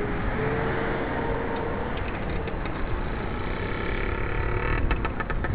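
Road traffic: cars running along the street with a steady engine drone. A quick run of clicks comes near the end.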